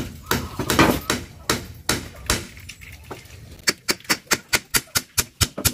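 Hammer striking a split-bamboo slat against a wooden post as it is fastened: a few separate blows, then a quick, even run of light taps, about six a second, over the last two seconds.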